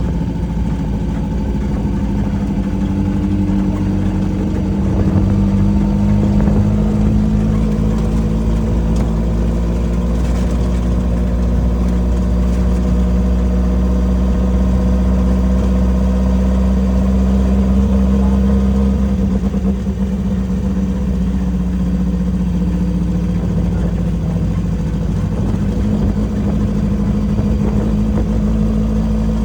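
Off-road race vehicle's engine running at fairly steady revs while under way, picking up a little about five seconds in, with a brief easing of the throttle about two-thirds of the way through.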